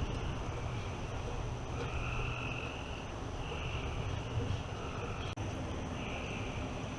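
Night chorus of frogs and insects after a thunderstorm: trilled calls about a second long repeat every couple of seconds over the steady hiss of light rain.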